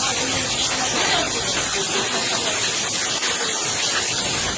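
Heavy rain or rushing water: a steady, even hiss.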